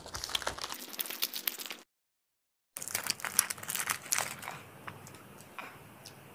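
Small Dairy Milk chocolate bar wrappers being torn open and crinkled by hand, in rapid crackles. The sound cuts out to dead silence for about a second near the two-second mark, then resumes. The crinkling fades out after about four and a half seconds.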